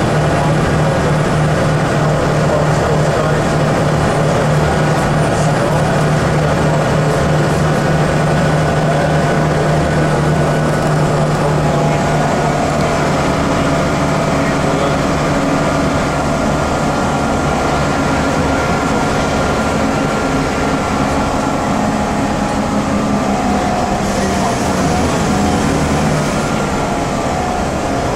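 Inside a moving 2001 Scania L94UB city bus: its rear-mounted nine-litre diesel engine and drivetrain hum steadily under the cabin noise. The note shifts somewhat in the last third as the bus changes speed.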